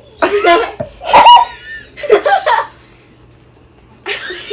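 Several people laughing and squealing in short bursts. The loudest is a high-pitched squeal about a second in, and another burst of laughter comes near the end.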